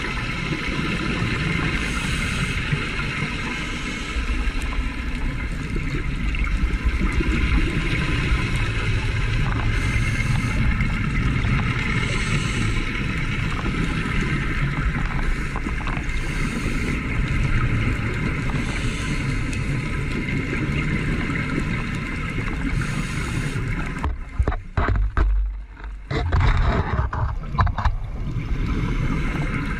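Muffled underwater noise picked up by a camera filming on the reef: a steady rushing wash of water, broken by several sudden short dropouts near the end.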